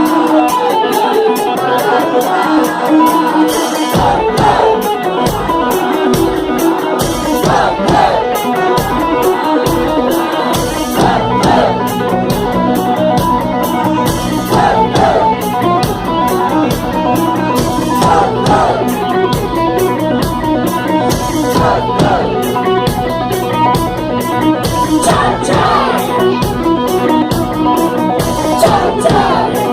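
Rock band playing, led by electric guitar. The guitar riff is heard alone at first, drums come in about four seconds in, and a bass line joins around eleven seconds in.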